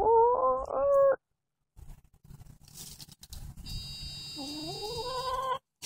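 A hen calling twice. Each call is drawn out, rising in pitch and then holding for about a second: one at the start and another about four and a half seconds in.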